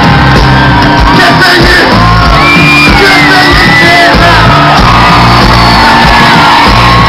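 Live band with guitar, drums and percussion playing loud through a concert PA, with voices shouting and whooping over the music.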